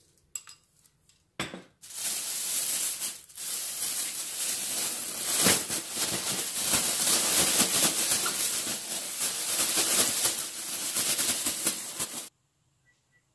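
Plastic bag holding shishito peppers and flour being shaken and rubbed to coat the peppers, a steady dense crinkling and rattling with a brief pause about three seconds in. It cuts off suddenly near the end.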